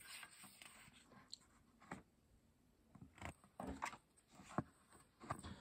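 Faint paper rustles and soft taps of a picture-book page being turned by hand.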